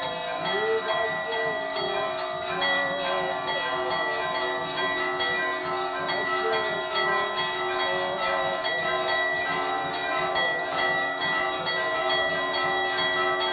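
Hanging metal temple bell rung by hand, rapidly and without a break, its strikes running together into a steady ringing. A wavering tone rises and falls underneath a couple of times.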